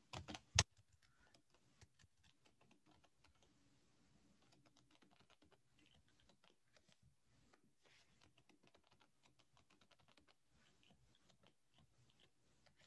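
Faint, irregular tapping of computer keyboard keys as a password is typed in, then typed again into the confirm field; one louder click comes just after the start.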